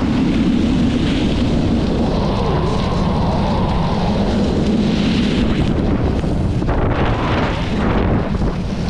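Loud, steady wind rush buffeting the camera microphone at skiing speed, with the Fels V7 Carbon skis' edges carving and scraping on groomed snow.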